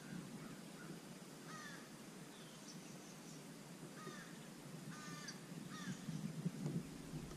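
Faint crows cawing: one call about a second and a half in, then a run of several short, harsh caws from about four seconds in.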